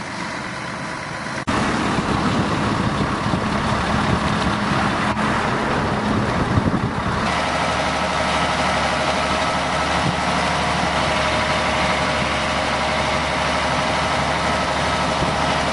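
Diesel engines of crawler excavators running under working load as they dig, a steady dense machine noise. It changes abruptly about a second and a half in, and again about seven seconds in, where a steady whine of several tones joins it.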